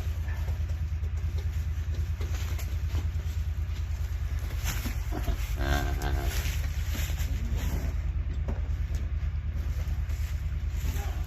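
An engine running steadily with a low, rapid pulsing, and a cow mooing once, briefly, about halfway through.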